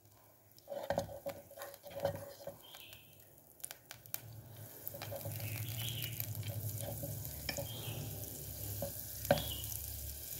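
Butter melting and beginning to sizzle in a heating non-stick pot while wooden chopsticks knock and scrape against the pot; the sizzle grows from about four seconds in as the pot comes up to heat.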